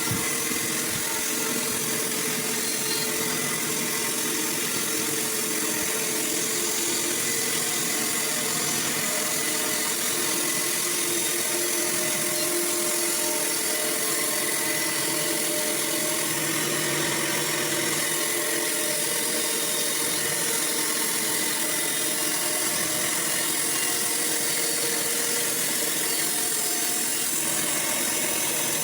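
Sawmill running steadily: a constant engine-like hum under an even high hiss, with no breaks or changes.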